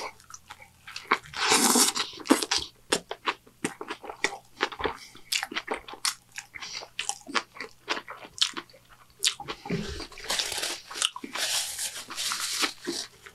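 Close-miked mouth sounds of a man biting into and chewing a Burger King Whopper with an onion ring on it: crunching and many wet chewing clicks. There is a noisy stretch about two seconds in and a longer one near the end.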